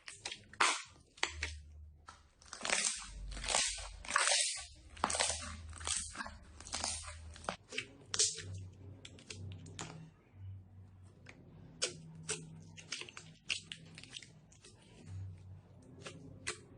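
Slime being squeezed and worked by hand, giving a dense run of crackles and crunchy pops, busiest in the first half.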